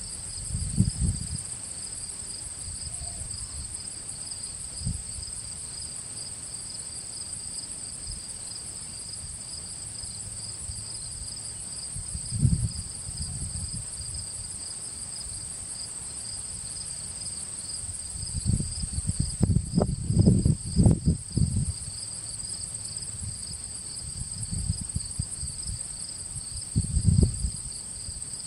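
Insects chirping steadily in a fast, high-pitched pulse. Irregular bursts of low rumble come and go over it, the loudest cluster about two-thirds of the way through.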